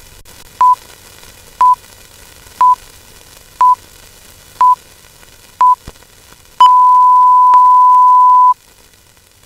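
Film-leader countdown sound effect: a short beep of one steady pitch once a second, six times, then one long steady beep lasting about two seconds, over faint background hiss.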